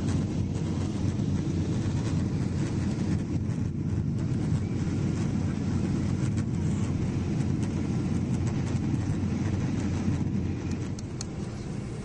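Steady low rumble of airliner cabin noise inside a Boeing 777-300 on approach: engine and airflow noise, easing slightly near the end, with a few faint clicks.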